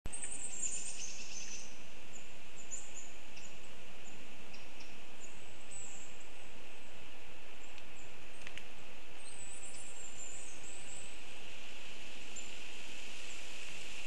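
Forest ambience picked up by a nest-camera microphone: a steady hiss with high, thin chirps of small birds, some sliding downward, bunched in the first couple of seconds and again around ten seconds in.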